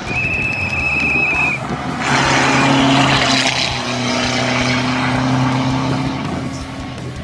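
Rally car engine held at steady revs, with a loud rush of tyre and gravel noise that sets in about two seconds in. A high steady tone sounds for the first second and a half.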